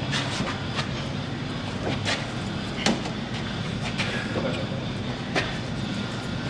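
A steady mechanical hum with irregular knocks and clatter over it, several sharp ones spread through.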